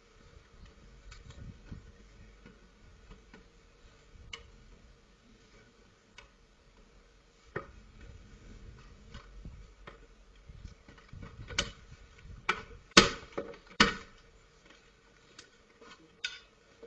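Metal tools knocking and prying at a uPVC window frame as it is forced. Scattered light clicks and taps, then a run of sharp, loud knocks about two-thirds of the way in, with a couple more near the end.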